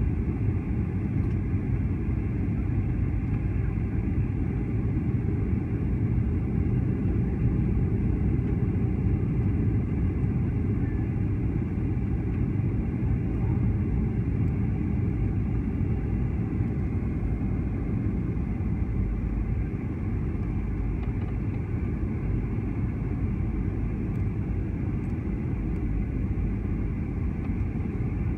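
Steady low roar of a jet airliner's cabin noise during its landing approach: engines and rushing air heard from inside the cabin, with no changes along the way.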